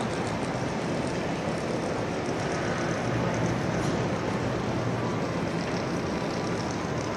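Steady ambience of a busy train-station concourse: a crowd of commuters murmuring and walking in a large echoing hall, blended into an even wash with faint scattered footstep clicks.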